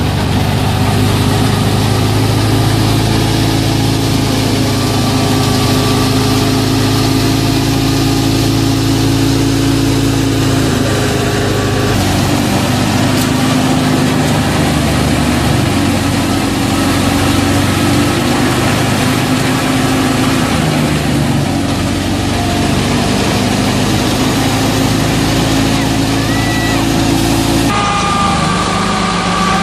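Tractor-driven grain thresher and its tractor engine running steadily under load, a continuous mechanical drone with a noisy rush from the threshing drum and fan. The tone shifts a few times.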